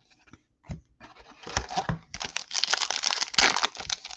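A baseball card pack's foil wrapper being torn open and crinkled, a dense crackling that starts about a second in and grows louder, after a few faint taps.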